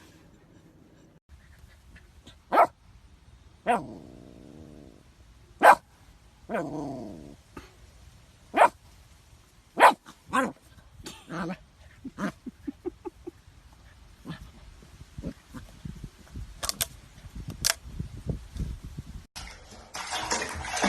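A dog barking in short, single barks, one to three seconds apart, with two drawn-out calls that fall in pitch in the first half and quicker, smaller sounds later on.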